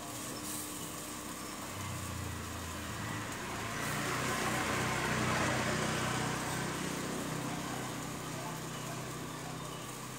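An engine running, with a low hum that comes in about two seconds in and a swell that grows to its loudest about halfway through, then fades.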